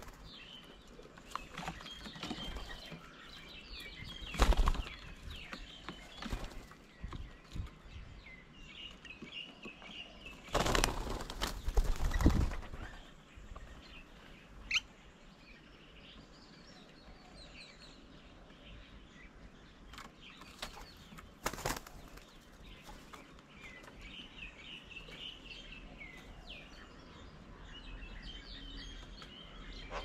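Birds' wings flapping in brief, sudden flurries as they land and take off at a feeding table: one about four seconds in, the loudest and longest, about two seconds, near the middle, and another later. Small birds chirp on and off in the background.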